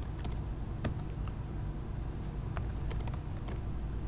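Computer keyboard being typed on: scattered single keystroke clicks at an uneven pace, a few in quick runs with pauses between them.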